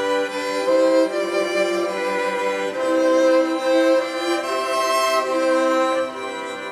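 Instrumental music: bowed strings, led by violin, playing sustained notes in several parts at once, the chords changing about once a second.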